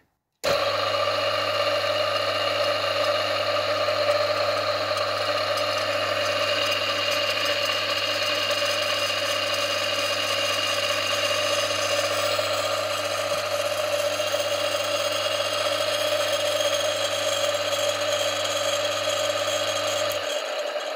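Brook Crompton 1.5 kW single-phase capacitor-start, capacitor-run motor switched on about half a second in and running unloaded at steady speed, a mechanical running noise with steady tones over a low hum. Its bearings are a bit noisy, rumbly and a little screechy. Near the end the low hum stops as the motor is switched off and coasts.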